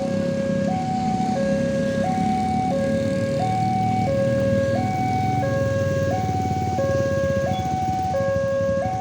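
Railway level-crossing warning siren sounding a two-tone alarm, switching between a high and a low tone about every two-thirds of a second, over a low rumble.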